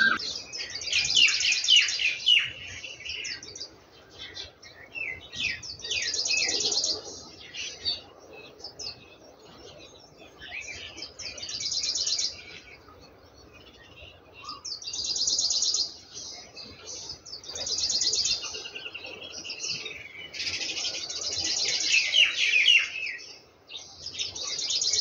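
Small birds chirping and trilling in bursts a second or two long, repeated every few seconds.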